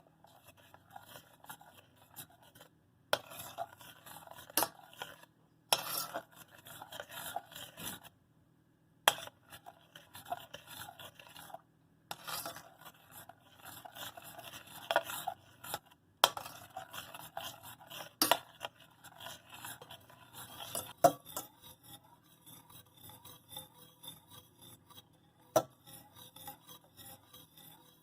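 A utensil stirring and scraping against a bowl in spells of scratchy rubbing with short pauses, and several sharp clinks scattered through.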